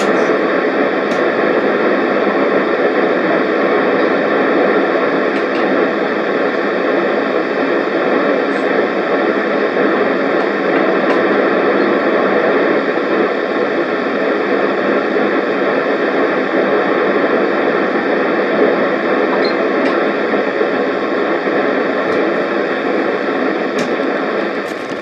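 Steady static hiss from a NOAA weather radio receiver with no voice on the channel, easing off near the end.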